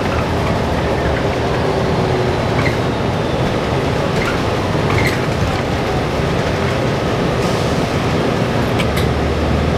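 Inside a moving New Flyer XDE60 diesel-electric hybrid articulated bus: a steady rumble of the drivetrain and road noise, with a few sharp clicks and rattles from the cabin.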